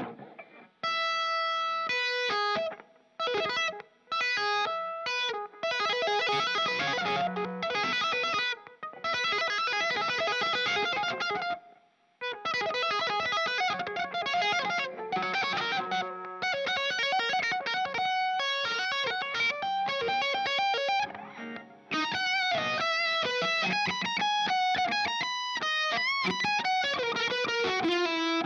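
Electric guitar, a Fender Stratocaster through an amp modeler and overdrive, playing fast, quickly changing melodic lead lines. There are a few short breaks near the start and a brief pause about twelve seconds in.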